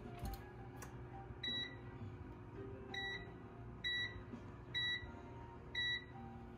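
Electronic wall-oven control panel beeping five times, short high beeps about a second apart starting a second and a half in, as its keys are pressed to set a cook time.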